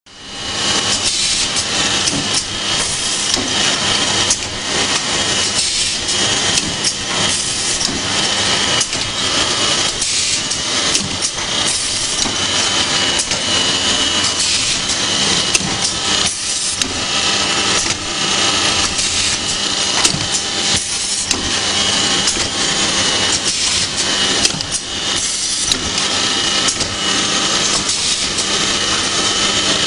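Automatic paint brush finishing and packaging line running: a steady machine hum and whine with frequent irregular clicks and knocks from its moving parts.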